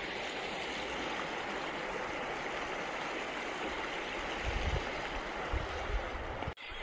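The Indus River flowing: a steady, even rush of moving water, with a few low thumps about two-thirds of the way in. The sound cuts off suddenly just before the end.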